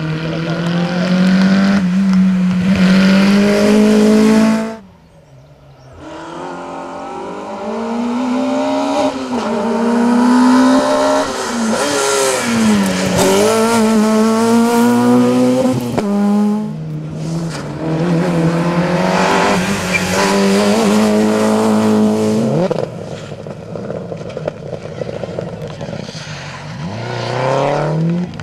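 Rally car engines at racing speed, the pitch climbing under acceleration and dropping at each gear change and braking. The sound drops off sharply about five seconds in, then another run builds up; near the end a falling pitch sweeps down.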